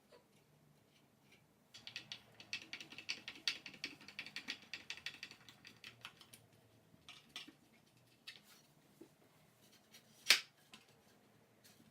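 Faint, quick run of small clicks lasting about four seconds, then a few single clicks and one louder click near the end, as from hand work on parts and fasteners.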